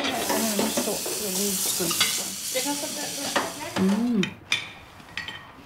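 Food sizzling while it fries, a steady hiss that fades out about three and a half seconds in.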